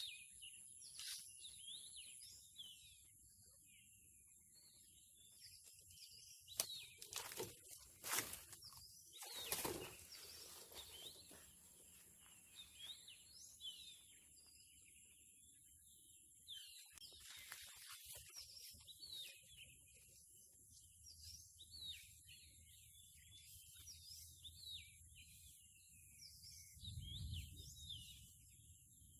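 Faint chorus of many small birds chirping in short, quick calls, over a steady high thin whine. A few brief rustles and knocks stand out, several of them between about six and ten seconds in and again at about eighteen seconds.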